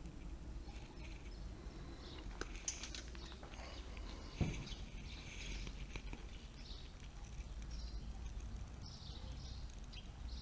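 Outdoor ambience: birds chirping on and off over a steady low rumble, with a few light clicks and one louder knock about four and a half seconds in.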